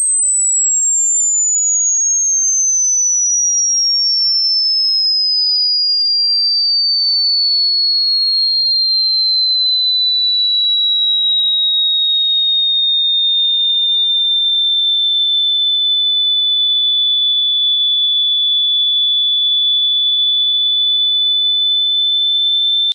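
A single pure electronic tone gliding slowly down from a very high pitch, levelling off to a steady high whistle-like tone over the second half, then cutting off suddenly at the end.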